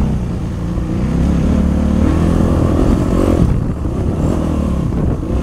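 2008 Yamaha YZ450F dirt bike's single-cylinder four-stroke engine running under way on a dirt trail, its note rising and falling as the throttle is worked.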